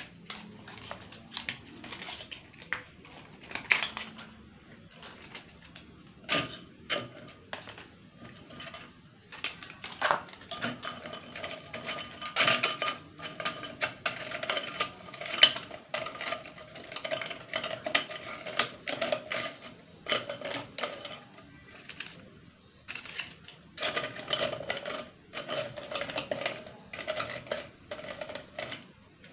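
Stiff pieces of dried cattle rawhide being pressed by hand into a ceramic slow-cooker pot: a run of irregular crisp clicks, knocks and scrapes of hide against hide and the ceramic. A steady ringing tone comes and goes from about ten seconds in.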